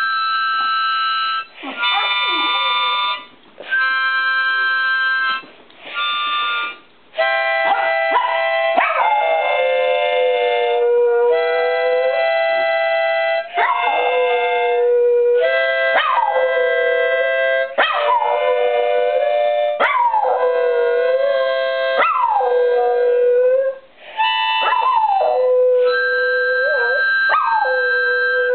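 A miniature schnauzer howling along to an instrument playing long held notes. For the first few seconds there are only a few separate held chords. From about seven seconds in, the dog joins with repeated howls that slide down in pitch and then hold, over the continuing notes.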